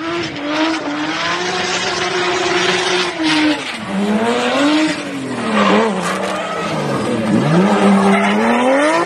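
Turbocharged BMW E30 race car drifting: its engine revs rise and fall several times with the throttle, dipping about four, six and seven and a half seconds in and climbing again near the end, over tyre squeal from the spinning, smoking rear tyres.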